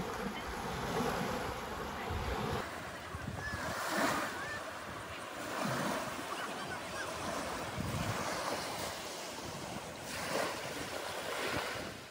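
Small sea waves breaking and washing up on a coarse sand beach, the surf swelling and easing every couple of seconds, with wind gusting over the microphone.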